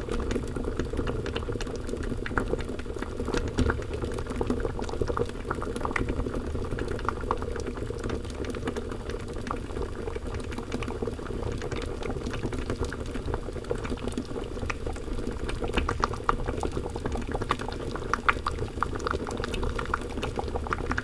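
Thick liquid boiling: a steady mass of bubbles rising and popping, with many small pops and blips over a low bubbling bed.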